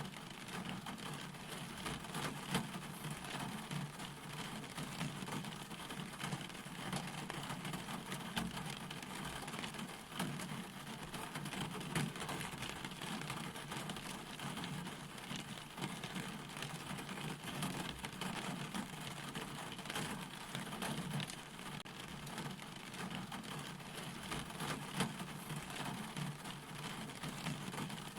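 Steady rain, a dense patter of drops with now and then a louder drop standing out.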